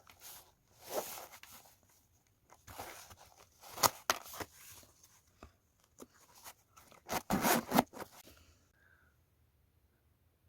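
Packaging being handled and opened: a series of rustling, scraping and tearing noises in short bursts. The loudest bursts come about halfway through and again near the end.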